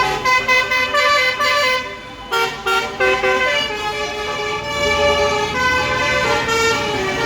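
Tour bus basuri telolet multi-trumpet air horn playing a melody. It starts with a run of quick short notes stepping up and down in pitch, then a few short toots, then longer held notes.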